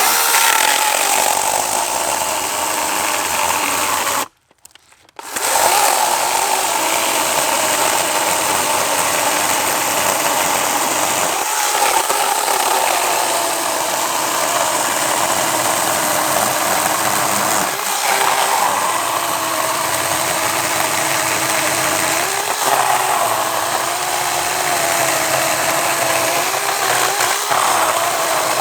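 Battery-powered 16-inch SunJoe 40-volt chainsaw running and cutting through a log, a steady electric-motor whine. It stops for about a second around four seconds in, then runs again, its pitch sagging briefly several times as the chain loads up in the cut.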